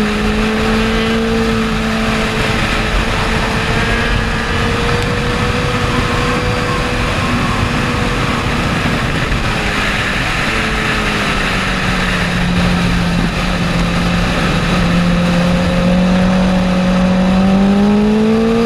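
Sportbike engine running hard at high revs, with wind rushing over the microphone. The note holds fairly steady, drops about two thirds of the way through, then rises again near the end as the bike accelerates.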